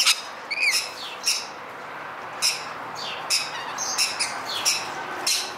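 A flock of rainbow lorikeets screeching close by: a run of short, shrill squawks, more than one a second, from birds perched on and around the listener.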